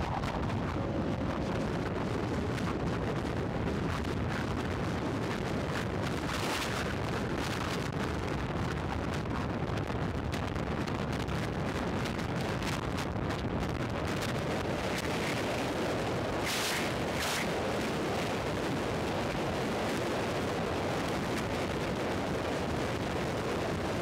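Steady wind noise on the action camera's microphone from riding a Royal Enfield Thunderbird 500 at highway speed, over the low rumble of its single-cylinder engine. Brief louder hissy gusts come about six seconds in and again around seventeen seconds.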